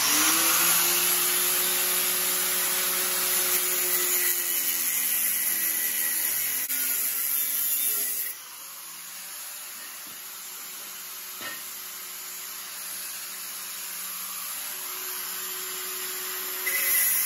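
Corded angle grinder with a cutting disc spinning up and cutting through square steel tubing, a loud steady hiss over a motor hum. About eight seconds in the noise drops markedly, the grinder still running, and it grows loud again near the end.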